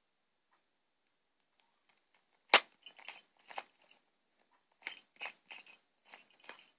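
Layers of a stiff plastic Rubik's Cube being twisted by hand: clusters of clicking and rattling as the faces turn, with one sharp, loud click about two and a half seconds in.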